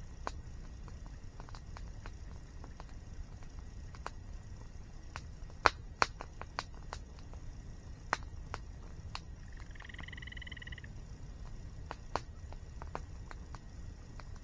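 Wood campfire crackling, with irregular sharp pops, the two loudest a moment apart near the middle, over a steady low rush of falling water. A short bird call sounds for about a second just before ten seconds in.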